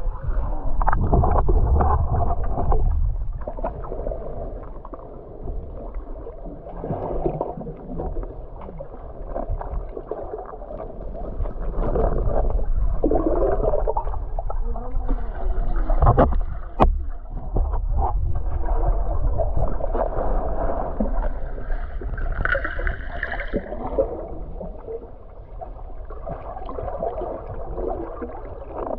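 Muffled sloshing and gurgling of water heard through an action camera dipping in and out of the lake beside swimming snorkelers, swelling and fading, with one sharp click about 17 seconds in.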